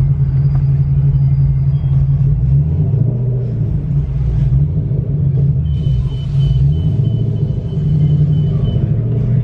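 Car engine running with a deep, steady rumble heard from inside the cabin. Its pitch dips and rises a few times as the car creeps forward in slow traffic.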